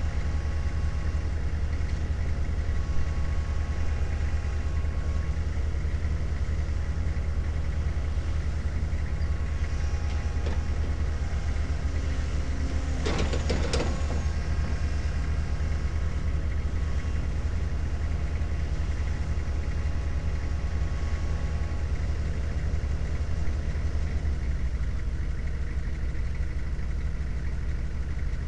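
Heavy diesel engine running steadily at idle, a low drone that drops slightly near the end. About halfway through comes a short burst of higher-pitched sound lasting about a second.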